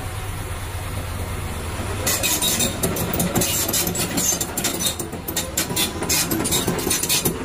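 Kobelco SK200 hydraulic excavator's diesel engine running, joined about two seconds in by a rapid, irregular clanking of its steel crawler tracks as the machine travels.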